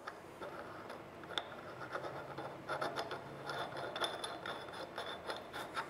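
A threaded pipe nipple being screwed into a pipe fitting by hand: the threads scrape and rasp in short irregular turns, with a few sharp clicks.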